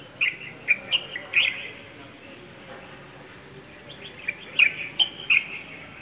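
Small songbirds chirping in a tree: two short runs of sharp, high chirps, one in the first second and a half and another about four seconds in.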